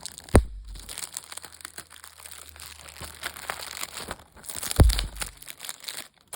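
Plastic shrink wrap crinkling and tearing as a Blu-ray case is unwrapped by hand, a steady run of small crackles. Two heavy thumps of handling, about half a second in and near five seconds in.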